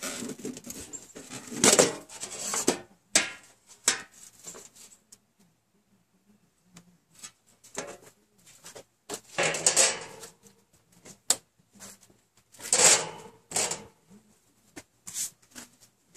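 Metal popcorn tin used for charring cloth being pried open and its lid lifted off: a series of scrapes, clanks and knocks of thin sheet metal. The loudest handling comes about two seconds in, near ten seconds and again near thirteen seconds, with quiet gaps between.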